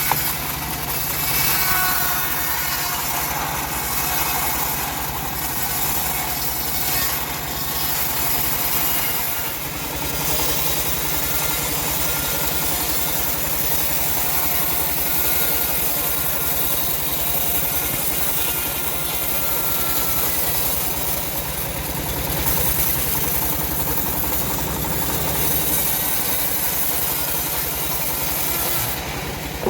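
Homemade bandsaw mill running steadily, its engine holding an even speed.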